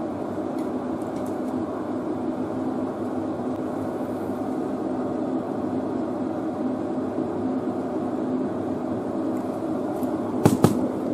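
Steady machine hum with a low drone, with two sharp clicks close together near the end.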